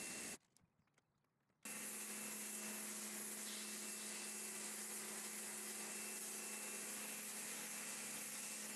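Kärcher pressure washer running, its jet hissing steadily onto wet paving stones over a steady motor hum. The sound drops out for about a second shortly after the start, then resumes unchanged.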